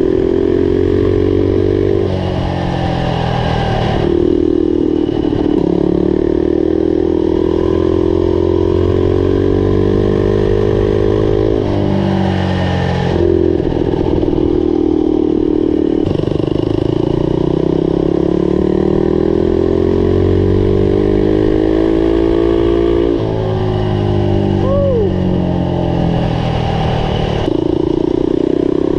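Turbocharged Predator 212 single-cylinder engine on a mini bike running under load on a ride. Its pitch repeatedly climbs as the throttle is opened and drops back when it is eased off.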